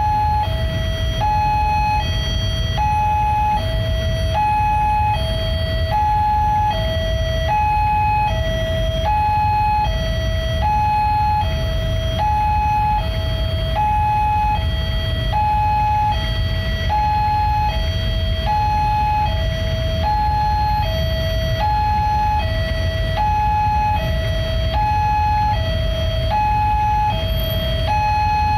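Railway level-crossing warning alarm sounding a two-tone electronic signal, alternating evenly between a higher and a lower note, each held about three quarters of a second, over the low rumble of idling cars and motorbikes. It signals that a train is approaching.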